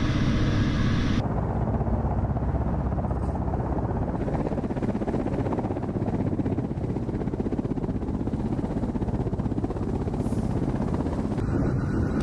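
Kamov Ka-52 attack helicopter with coaxial rotors. It starts as a steady engine and rotor drone inside the cockpit, then about a second in switches to the helicopter heard from outside, a rapid rotor beat over engine noise as it hovers. The sound changes again near the end.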